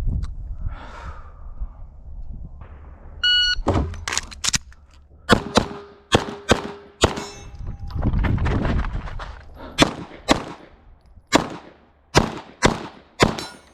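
Shot-timer beep about three seconds in, then a USPSA carry optics handgun firing strings of quick pistol shots. Steel targets ring with a steady tone after hits in the first string.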